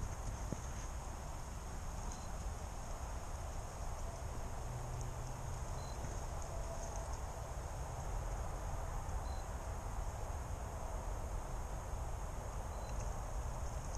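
Woodland ambience: a steady high insect drone over a low rumble, with a short faint chirp every few seconds.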